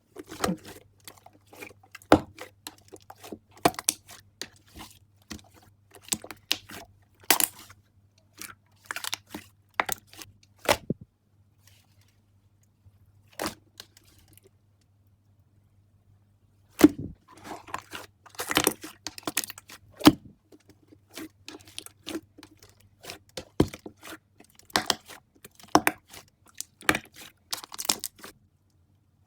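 Slime being squeezed and poked by hand, making irregular sticky pops, crackles and clicks in uneven clusters, with a pause of several seconds about midway.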